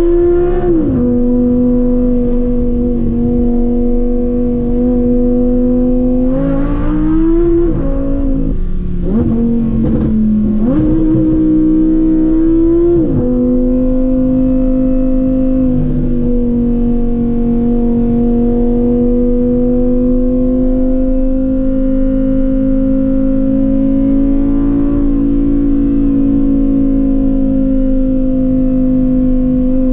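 Lamborghini Huracán Performante's V10 heard from inside the cabin, cruising at light throttle with a steady, even drone. A couple of times it rises in pitch briefly, and the pitch drops away sharply about a second in, just past eight seconds and near the middle.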